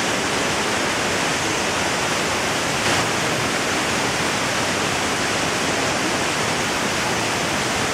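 Steady rush of a waterfall: an even, unbroken hiss of falling water, with one brief louder moment about three seconds in.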